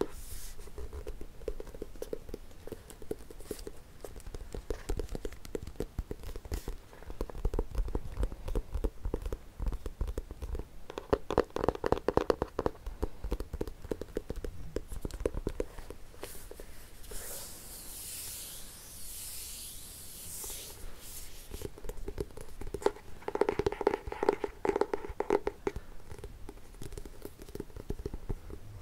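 Fingers tapping and scratching on a book, a dense run of quick soft taps that swells twice. In between comes a stretch of higher, hissier rubbing.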